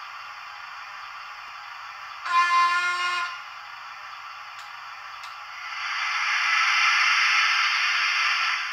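Hornby Black 5 model locomotive's TTS sound decoder playing steam sounds through its small speaker. A steady hiss runs under a single whistle blast of about a second, a little over two seconds in. Two faint clicks follow, then a louder rush of hiss from about six seconds in.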